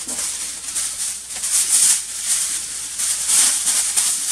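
Aluminium foil crinkling and rustling as it is handled and cut with a small knife, a crackly, high-pitched rustle that swells and fades several times.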